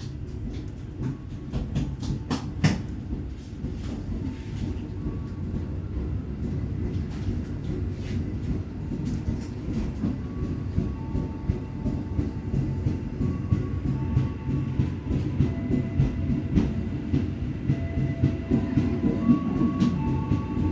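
Indonesian passenger train carriage running along the track, heard from inside the coach: a steady rumble of wheels with sharp clicks over the rail joints, growing louder over the first few seconds. Thin whining tones come and go from about halfway through.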